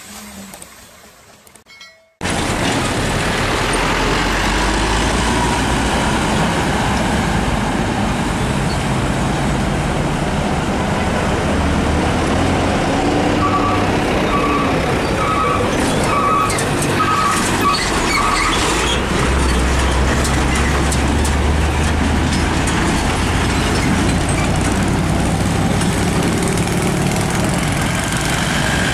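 Heavy diesel container trucks and other traffic passing close by: a steady engine rumble with tyre and road noise. It starts after about two quiet seconds. Around the middle there is a run of about six short beeps.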